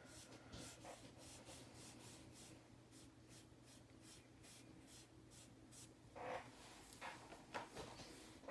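Sponge-tipped pastel applicator rubbing PanPastel onto paper in short, quick, faint strokes, about three a second. The strokes stop about two-thirds of the way through, followed by a few brief, slightly louder handling sounds near the end.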